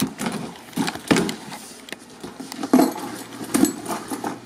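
A cardboard shipping box being handled and its flaps pulled open: irregular knocks and rustles of cardboard.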